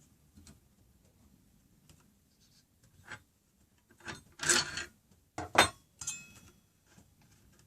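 Hands handling the circular saw and its fittings: a short scrape about halfway through, then a few sharp clicks and knocks, one followed by a brief metallic ring.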